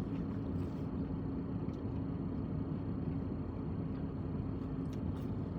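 Steady low background rumble with a constant hum, and a few faint clicks.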